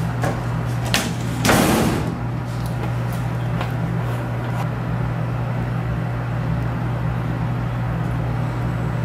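Steady low hum of lab ventilation. Over it come a few light knocks of plastic bottles being handled at a wet bench, and a louder brief scraping rustle about a second and a half in.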